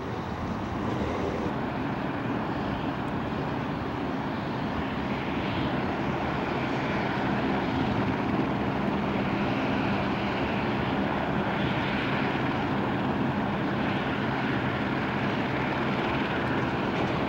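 Steady aircraft engine noise: an even rumble with a low hum running through it, growing slightly louder about a second in.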